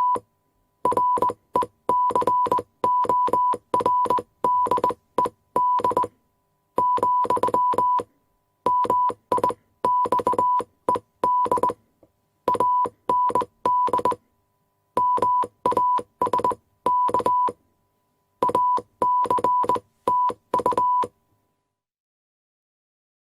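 Morse code sent as a keyed beep: one steady tone switched on and off in runs of short and long beeps, grouped with brief pauses between. Each beep has a sharp click at its start and end, and the sending stops about 21 seconds in.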